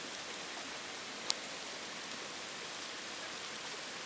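Steady hiss of heavy rain falling during a thunderstorm, with one sharp tick about a second in.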